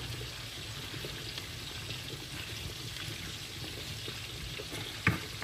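Duck breasts sizzling steadily as they fry in a pan, with a single knock about five seconds in.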